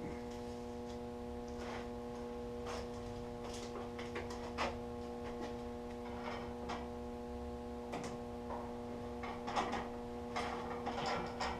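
Faint rustling and small scattered clicks of a vinyl sticker being peeled from its backing and worked by hand, thickest near the end, over a steady electrical hum.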